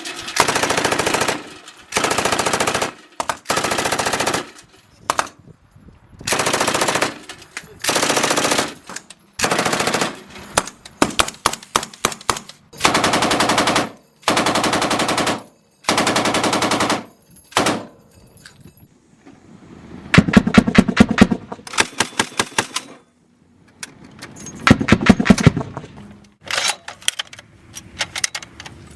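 Automatic gunfire: about a dozen rapid-fire bursts of roughly a second each with short gaps between them, then after a brief lull two longer, looser volleys of separate sharp shots.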